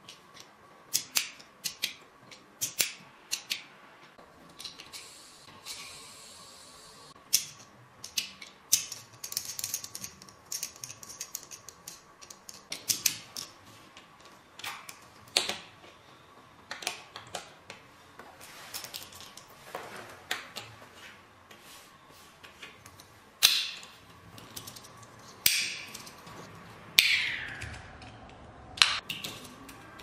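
Clear plastic magnetic fidget slider with ball-bearing pushers being slid and snapped by hand: irregular sharp plastic clicks and clacks, some much louder than others.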